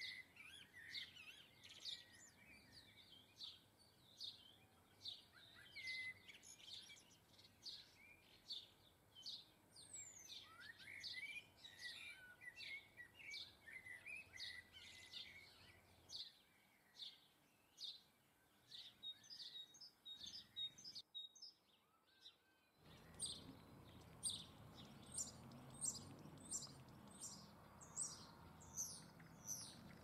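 Faint, rapid chirping of small garden birds, several short high chirps a second. About 21 seconds in the sound drops out for a moment, then the chirping resumes over a louder background hiss.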